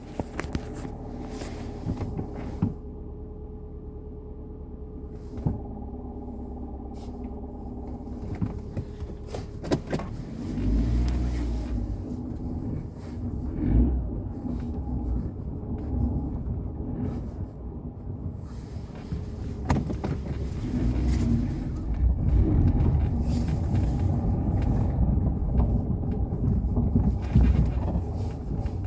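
Fiat 500 1.2 with a five-speed manual gearbox running, heard from inside the car: a steady hum with a held tone for about the first ten seconds, then a louder, uneven low rumble as the car is driven. The noise comes from the transmission, which the owner traced to a worn gearbox mainshaft bearing.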